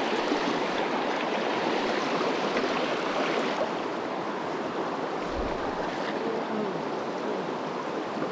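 Shallow river riffle: a steady rush of water running fast over and around rocks.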